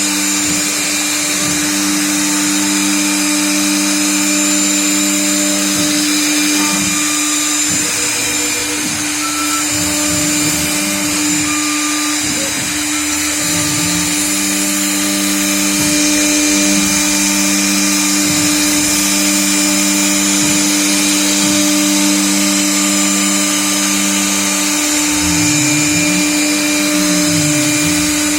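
CNC router cutting letters: the spindle runs with a steady whine, while a lower motor tone holds level, then glides up and down in pitch several times, most of all near the end, as the machine's axes change speed and direction.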